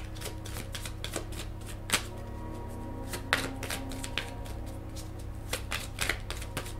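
Deck of oracle cards being shuffled by hand: a run of light, irregular clicks and flicks as the cards slip against each other.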